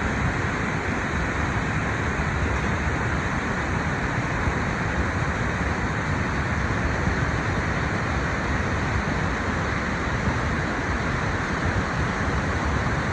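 Seine river water flowing: a steady, even rush with no breaks.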